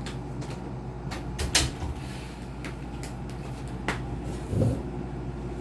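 Several sharp clicks and knocks from handling the opened laptop, the loudest about a second and a half in and a duller knock near the end, over a steady low hum.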